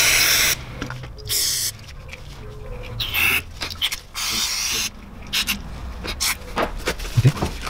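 Aerosol parts cleaner sprayed in about four short hissing bursts, each half a second to nearly a second long, to clean a VANOS part.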